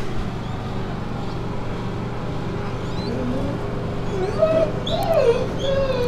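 Pit bull whining: a string of short whimpers that rise and fall in pitch, mostly in the second half, over a steady low hum.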